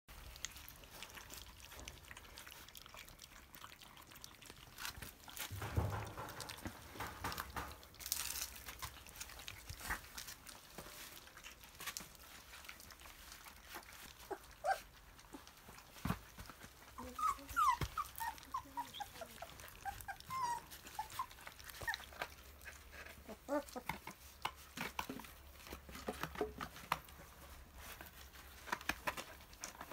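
Three-week-old puppies eating soft food from plastic trays: many small wet lapping and smacking clicks throughout, with a few short high whimpers about halfway through.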